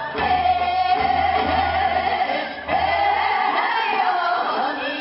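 Seodo sori, the folk song of Korea's northwestern provinces, sung by a small group of women with a traditional Korean instrumental ensemble. The melody holds two long notes, with a short break about halfway through.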